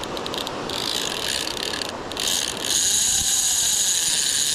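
Large conventional fishing reel's drag buzzing and clicking steadily as a hooked shark pulls line off. It dips briefly about two seconds in, then comes back louder.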